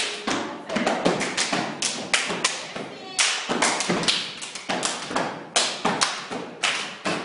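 Stepping: foot stomps and hand claps struck in a fast rhythm, several sharp strokes a second.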